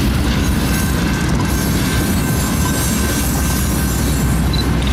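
Freight train of flatcars rolling past: a steady heavy rumble of steel wheels on the rails, with a faint, thin, steady wheel squeal above it.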